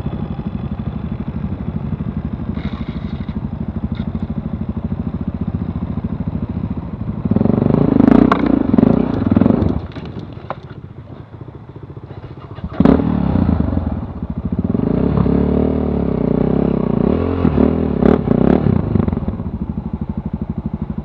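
Motorcycle engine idling with an even firing beat, then opening up under throttle about seven seconds in as the bike rides over a rough forest trail, with knocks and clatter from bumps. It eases off near ten seconds, pulls again from about thirteen seconds, and drops back to idle near the end.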